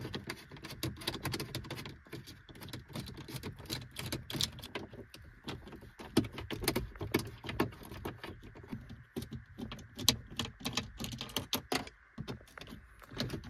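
Hand driver on a dashboard bolt, clicking rapidly and unevenly as it is turned back and forth to undo 8 mm bolts.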